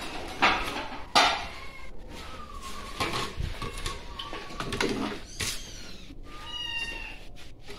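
Hungry kittens meowing for their food, several drawn-out calls that bend in pitch. Ceramic plates clatter and knock against the counter as they are set out, the loudest knocks in the first second or so.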